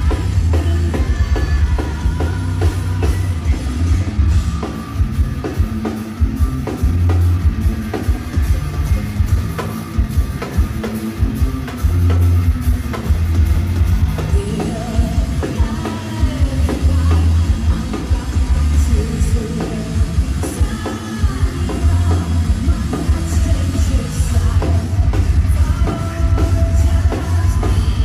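Metal band playing live in concert: pounding drums and a heavy low end with a singer's voice over them, recorded on a phone from the audience.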